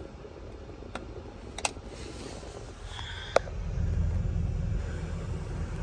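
Low steady rumble inside an SUV's cabin, growing louder about four seconds in, with a few light clicks and a brief high tone about three seconds in.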